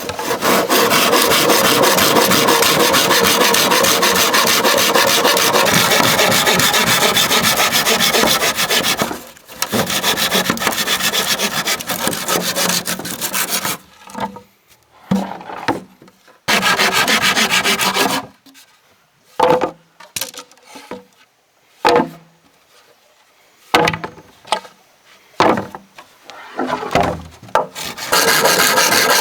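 Bamboo being worked with a hand tool: a long spell of steady, rapid rasping, then from about halfway short separate strokes and knocks with pauses between them, and steady rasping again near the end.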